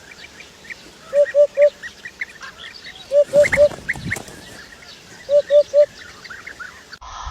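Birds calling: a low three-note call repeated three times, about two seconds apart, over scattered higher chirps.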